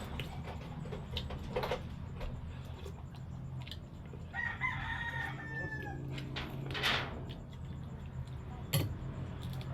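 A rooster crows once, about four seconds in, for about a second and a half. Underneath are a steady low hum and scattered sharp clicks.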